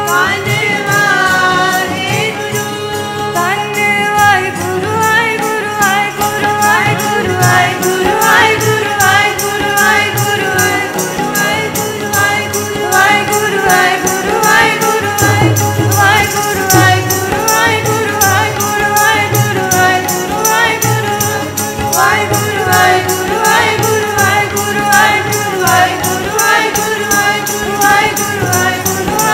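Sikh kirtan: several women's voices singing a devotional chant together, with harmonium, acoustic guitar and tabla, over a steady quick beat of jingling hand percussion.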